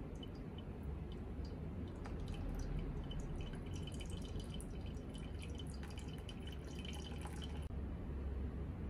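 A thin stream of water poured from a gooseneck kettle onto a drip coffee bag, trickling and dripping through into the mug below. Scattered drips at first, growing into a dense patter after about two seconds, then cutting off suddenly near the end.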